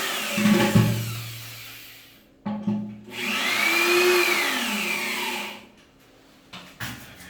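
Power drill running in two bursts, its motor whine rising and falling in pitch as the trigger is squeezed and eased. The first burst stops about two seconds in, the second runs about two and a half seconds, and a few light knocks follow near the end.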